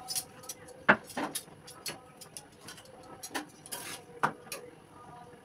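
Scattered light clicks and knocks of kitchen utensils against a flat griddle and pot on a gas stove while a paratha cooks, the sharpest about a second in and again about four seconds in.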